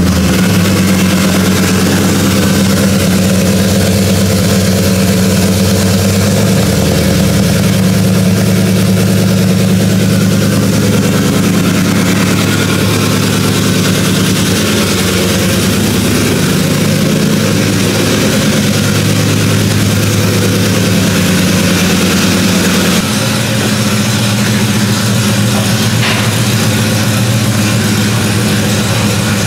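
Freshly rebuilt 6.2-litre LT V8 in a 2017 GMC Sierra, with an upgraded camshaft, DOD delete, headers and high-flow Y-pipe, idling steadily just after its first start following the rebuild. About three-quarters of the way through, the idle steps down and gets slightly quieter.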